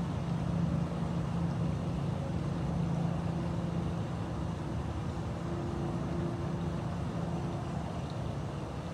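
Steady low mechanical drone with a constant hum, like a motor running, unchanging throughout.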